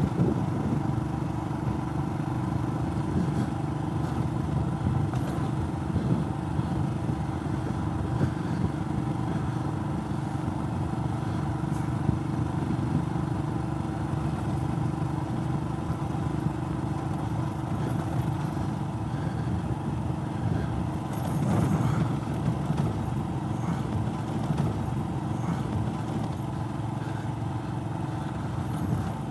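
Royal Enfield Himalayan's 411 cc single-cylinder engine running steadily at road speed, pulling a sidecar on a gravel road, with tyre noise from the gravel under it. It grows briefly louder about two-thirds of the way through.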